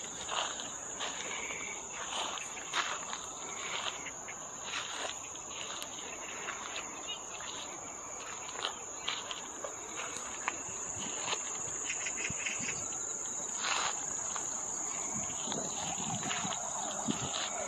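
A steady high-pitched chorus of insects in the grass, with footsteps on a path sounding as short knocks every second or so.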